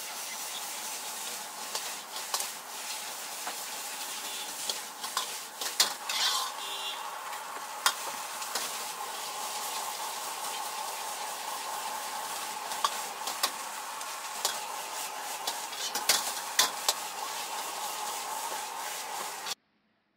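Shrimp fried rice sizzling in a wok, with a metal ladle scraping and clanking against the pan as it is stirred and tossed. The sizzle is steady, with sharp clanks throughout, and it cuts off abruptly near the end.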